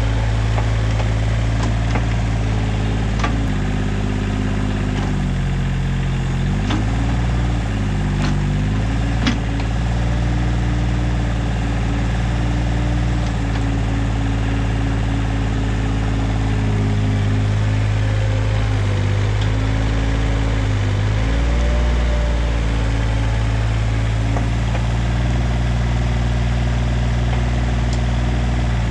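Bobcat X320 mini excavator's diesel engine running steadily, its pitch sagging for a few seconds twice as the hydraulics take load while the arm digs. A few sharp knocks come in the first ten seconds.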